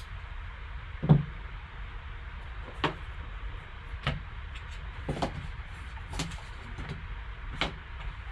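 Cardboard trading-card box being handled with gloved hands: the box lifted, its sleeve and lid slid off and set down, giving a string of separate light knocks and scrapes about once a second, the loudest about a second in. A low steady hum runs underneath.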